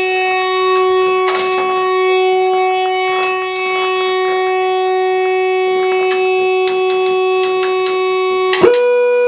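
Point Abino Lighthouse's 24-volt electric fog horn sounding one loud, steady tone. About eight and a half seconds in it jumps abruptly to a higher pitch with a click.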